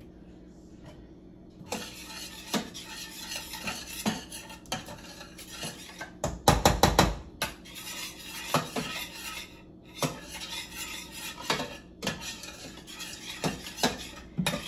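Spoon stirring marinara sauce in a pot, scraping and clinking against the sides, after a quiet first second or so. A quick run of loud knocks comes a little after halfway.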